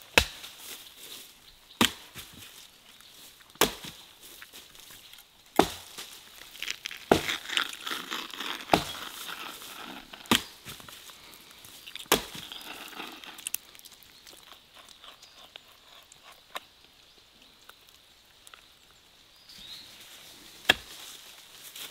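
Axe chopping dead wood: sharp single strikes about every two seconds, eight in a row, with rustling in between. After a quieter stretch there is one more strike near the end.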